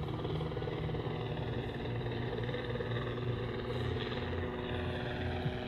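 Large-scale electric RC model of a Bell AH-1F Cobra helicopter flying past with a 3.25 m rotor, giving a steady hum of several held tones from its motor and rotor.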